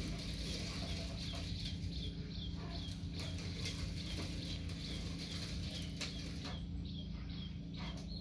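A bird peeping over and over: short high chirps that fall in pitch, about two a second, over a steady low hum.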